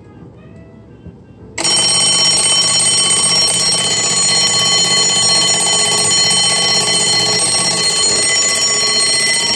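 Vintage Westclox Big Ben wind-up alarm clock's mechanical bell alarm going off, starting suddenly about a second and a half in and ringing loudly and steadily.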